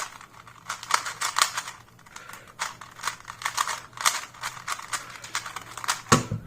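2x2 Rubik's cube being turned rapidly in a speed solve: quick, uneven plastic clicking and clacking of the layers. Near the end comes a heavier thump as the solved cube is set down to stop the timer.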